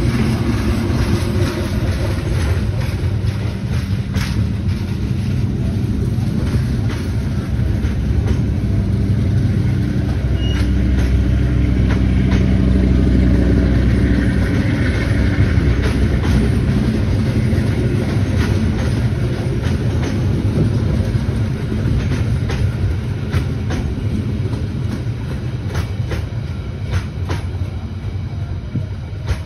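Stainless-steel passenger coaches rolling past with a steady rumble, their wheels clicking again and again over the rail joints.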